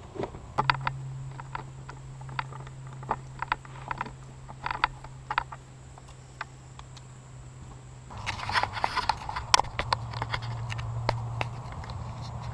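Sharp plastic clicks and taps from hands working the glovebox and cabin air filter housing, with a busier stretch of clicking and rustling about eight seconds in, over a steady low hum.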